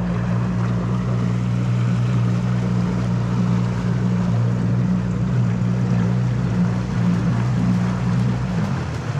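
Boat's outboard motor running steadily at low throttle with a constant hum, its pitch dropping back near the end, over water and wind noise.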